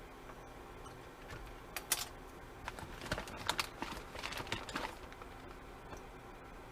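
Kitchen utensils and containers clicking and tapping while turmeric is added to the pan: a run of quick, light clicks from about two to five seconds in.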